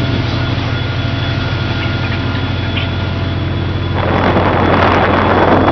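Fishing boat's engine and machinery running with a steady low hum and faint steady whine. About four seconds in, a louder rush of sea water and wind comes in over it.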